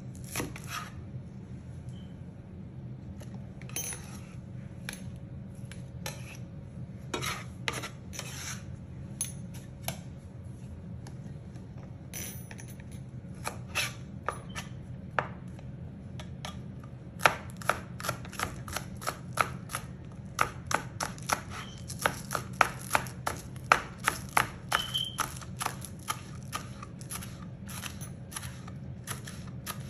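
Kitchen knife chopping green onions on a plastic cutting board: scattered knocks at first, then a quick, even run of chops at about three a second through most of the second half. A low steady hum sits underneath.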